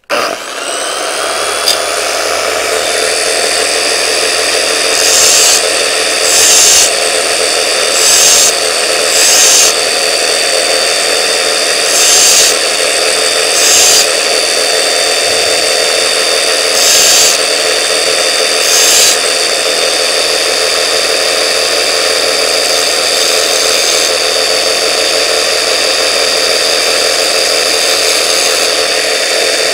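Large angle grinder switched on and spinning up, then running steadily with a high whine. A twist drill bit is pressed to the grinding disc in about eight short passes, each a second or less of louder grinding hiss, to sharpen it by hand.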